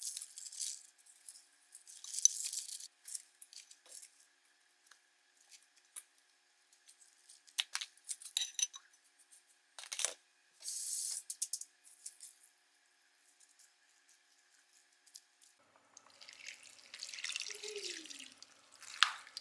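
Fresh vegetables and bean sprouts rustling and crackling in short bursts as they are laid by hand into a shallow pot, with a sharp click about ten seconds in. About sixteen seconds in, broth starts pouring and splashing into the pot.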